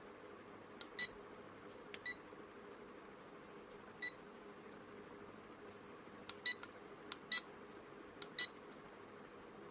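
Digital fridge thermometer's buzzer giving short high beeps, about a dozen at uneven intervals, singly and in quick pairs, as its buttons are pressed to set the high-temperature alarm limit.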